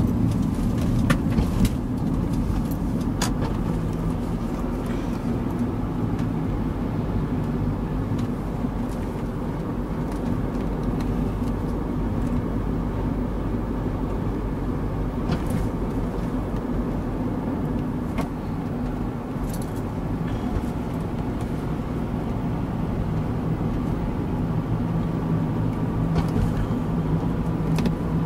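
Car cabin noise while driving, heard from inside: a steady engine and road rumble, with a few faint clicks or rattles scattered through it.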